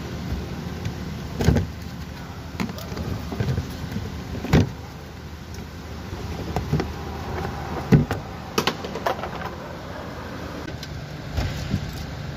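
Irregular clicks and knocks of hands and tools working at a car's plastic inner wheel-arch liner, a few sharper knocks standing out, over a steady low hum.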